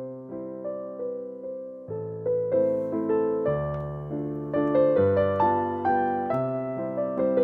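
Background music: a slow, gentle piano piece, chords and melody notes struck about every half second and left to ring.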